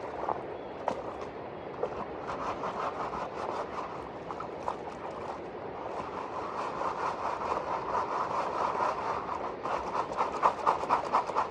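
Gravel and small stones rattling in quick, rhythmic strokes as they are shaken during gold panning, growing busier and louder in the second half, over a steady rush of river water.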